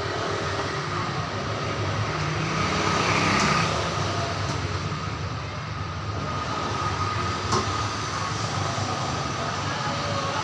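A steady machine drone with a low hum and a thin high tone running through it, swelling into a brief hiss about three seconds in, with a faint click near the end.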